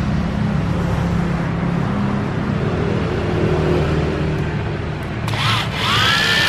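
Makita 9.6 V cordless impact driver triggered with no load about five seconds in: a quick blip, then a longer run. Each time the motor spins up with a rising whine that levels off. A steady low hum runs underneath throughout.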